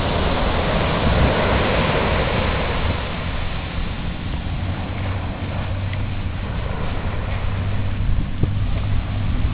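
Ocean surf washing on the shore, with wind buffeting the microphone in a low rumble. The wash is fuller for the first few seconds, then eases.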